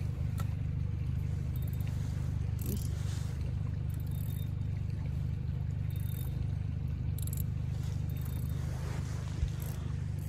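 Steady low rumble of a small fishing boat under way on choppy water, with wind buffeting the microphone and a few brief hissing splashes.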